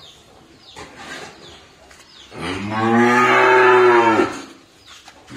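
Young beef bull mooing once: a single long, low call of about two seconds, starting about two seconds in.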